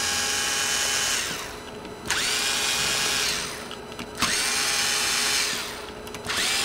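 Power screwdriver backing out screws in a run of short bursts, each a little over a second long. In each burst the motor whine rises as it spins up, holds, then winds down. The bursts come about every two seconds.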